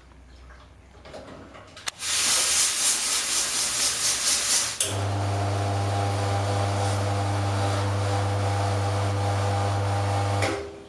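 Commercial espresso machine's steam wand being purged for cleaning: after about two seconds a loud, fluttering hiss of steam bursts out, and a few seconds later it settles into a steady hiss with a strong low hum under it, cutting off just before the end.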